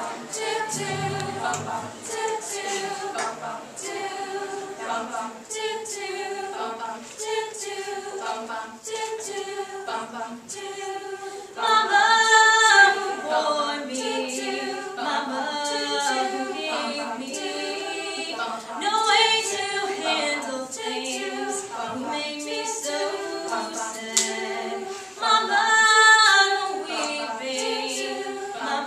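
All-female a cappella group singing in close harmony, unaccompanied, with a soloist out front. The singing swells louder about twelve seconds in and again near the end.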